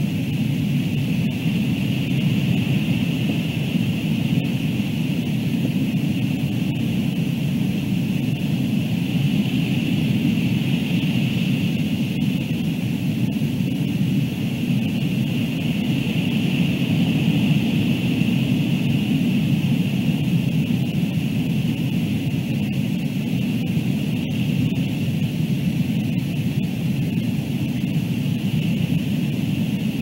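Steady rushing wind noise on an outdoor camera microphone, with a constant high hiss above it and no distinct events.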